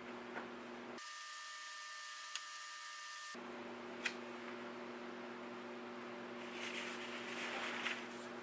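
Faint steady room hum with two light knocks, then a sheet of drawing paper rustling and sliding over wooden boards on a workbench for about a second and a half near the end.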